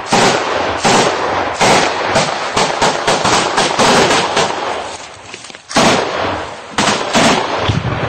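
Close small-arms gunfire: about a dozen sharp shots at irregular intervals, each with a long echoing tail. There is a lull of about a second midway before three more shots.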